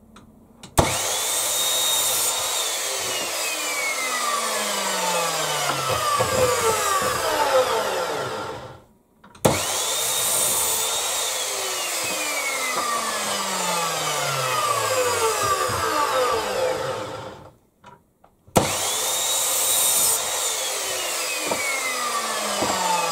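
Electric mitre saw (chop saw) cutting three pieces of timber, one after another. Each run starts with a quick rising motor whine, then the pitch sinks steadily for several seconds before the saw stops, with a short pause between runs.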